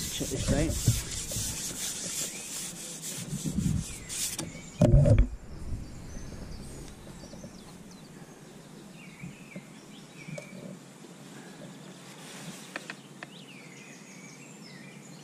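Rubbing and rustling of clothing or tackle against the microphone for the first few seconds, with one heavy thump about five seconds in. After that, small birds chirping over a quiet lakeside background.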